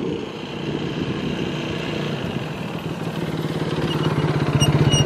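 A small engine running with a fast, even putter, growing louder over the last couple of seconds.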